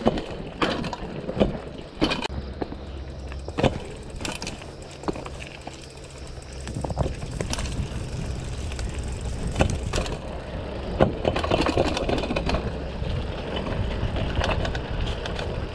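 Mountain bike rolling over a stone-paved trail: tyres rumbling on the stones, with sharp knocks and rattles from the bike as the wheels strike them. The rattling gets denser and louder in the last few seconds.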